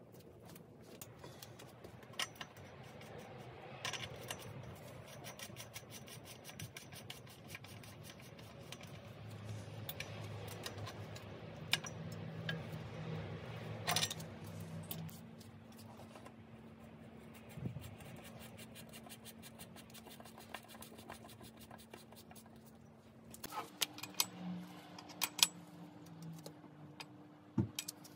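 Light metal clicks, scrapes and jangling of bike tools on a cartridge bottom bracket as it is threaded into the frame's bottom bracket shell and tightened with a bottom bracket tool and an adjustable wrench. The sharpest clicks come near the middle and in the last few seconds.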